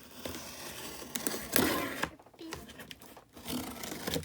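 Shipping package crinkling and rustling as it is handled for opening, with small clicks and a louder rustle about one and a half seconds in.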